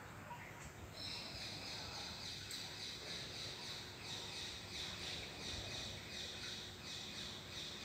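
A bird chirping: a high, rapidly repeated call that starts about a second in and runs for several seconds.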